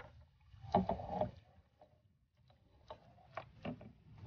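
A whitefish splashing in a landing net at the water's surface, then the net's frame and handle knocking against a small boat's hull as it is lifted aboard. There is a splashy burst about a second in, then several sharp knocks.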